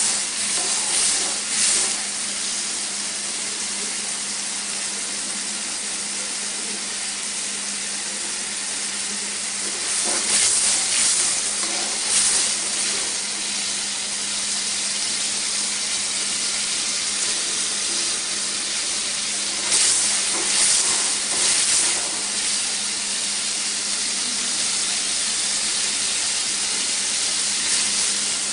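Sliced onions frying in hot oil in an aluminium karai, a steady sizzle throughout. The sizzle grows louder in short spells about three times as a spatula stirs the onions.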